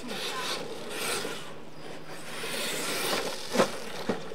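Radio-controlled monster truck driving on loose dirt: a motor whine and tyres scrabbling over the ground, with two sharp knocks about three and a half and four seconds in.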